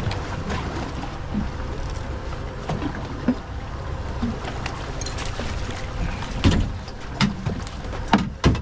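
Wind and sea water around a small fishing boat, a steady low rumble, with a few sharp knocks on the boat, the loudest about six and a half and eight seconds in.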